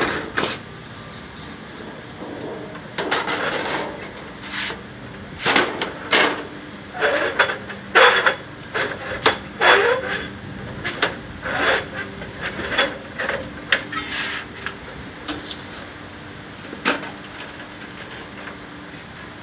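Thin aluminum siding sheet being worked in a portable siding brake: irregular clanks, rattles and short scrapes of sheet metal against the brake's jaws, busiest in the middle, with one last knock near the end.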